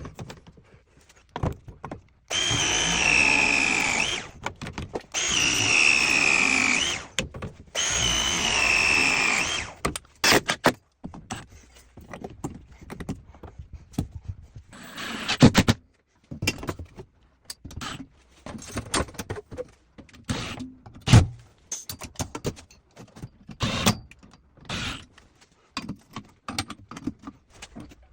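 Cordless power drill running in three bursts of about two seconds each, with a steady whine. Scattered knocks and clicks of tools and parts being handled follow.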